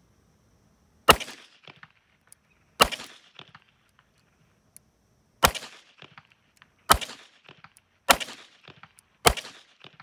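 Six shots from a 1942 Nagant M1895 revolver in 7.62×38mmR, fired at an uneven pace over about eight seconds. Each sharp crack is followed by a short trailing echo.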